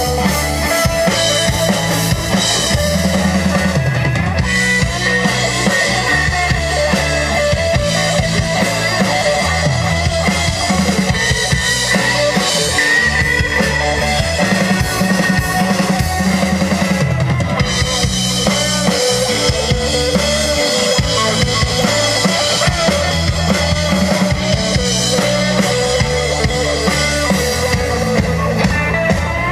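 Rock band playing an instrumental passage with no singing: drum kit to the fore, with kick and snare, over a steady, repeating bass line.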